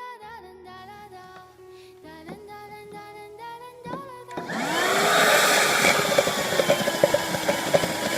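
Background music, then about four seconds in a handheld wet/dry car vacuum cleaner switches on. Its motor whine rises as it spins up, then it runs steadily and loudly.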